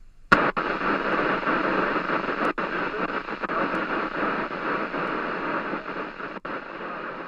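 VHF FM radio's squelch opening with a click into steady static hiss, broken by a few brief dropouts: a weak station keying up, too weak and noisy to be understood.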